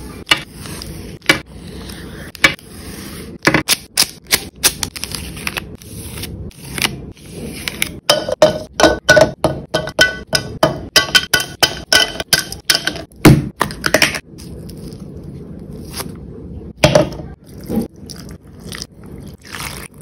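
Close-up food-prep handling sounds: many sharp clicks, taps and crackles as chunks of Snickers bar go into a clear plastic blender cup, busiest through the middle. Near the end comes a spoon scraping and scooping ice cream out of a plastic tub.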